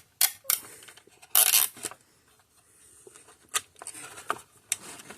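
Plastic zip ties being worked through hold-down slots around a capacitor: scattered sharp clicks and rubbing, with a louder rasping scrape about a second and a half in.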